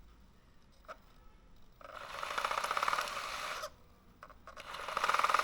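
Small electric motor of a 3D-printed 1/16-scale hydraulic excavator model running with a buzzing whir. It runs in two bursts: it starts about two seconds in, cuts out briefly, then starts again and grows louder near the end. A faint click comes about a second in.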